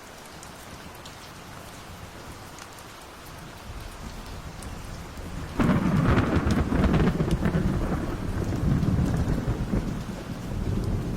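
Steady rain with scattered drop ticks, then about halfway through a sudden crack of thunder that breaks into a loud, rolling rumble lasting to the end.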